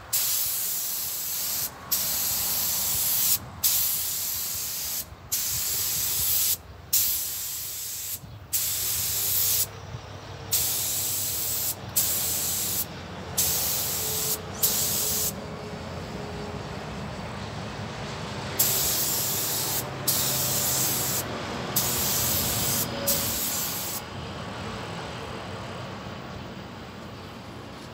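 Air-fed paint spray gun, set to about 2 bar, spraying in repeated hissing bursts of a second or two each as the trigger is pulled and released, about fifteen times. The spraying stops about four seconds before the end.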